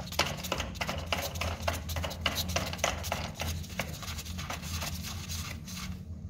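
Quick irregular clicking and rustling of a hand in a thin plastic glove screwing a toilet seat's fixing nut onto its bolt under the pan, thinning out near the end, over a steady low hum.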